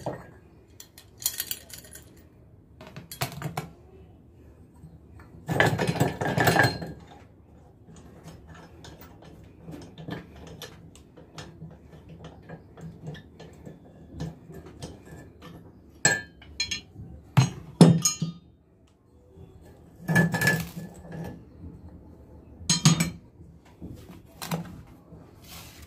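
Broken glass marble pieces clinking and rattling against a steel mixer grinder jar as it is handled, in scattered sharp clinks with a few longer rattles.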